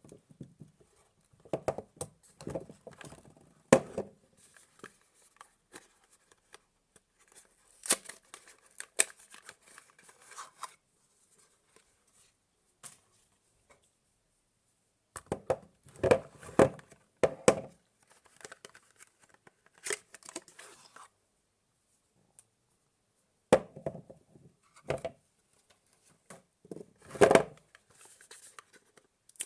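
Soap packaging being unwrapped by hand: wrappers tearing and crinkling in short bursts, separated by pauses of a few seconds.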